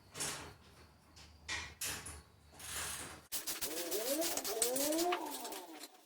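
A few short knocks and rustles of parts being handled, then, after a sudden cut, drawn-out animal yowls whose pitch rises and falls in repeated arcs.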